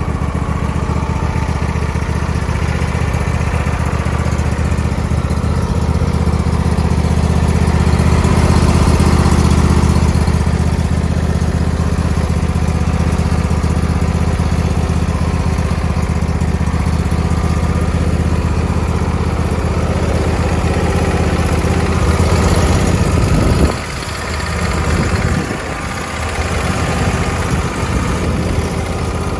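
Husqvarna riding mower's Briggs & Stratton V-twin engine idling steadily just after a start, throttle left at idle. About 24 seconds in the sound drops and becomes uneven.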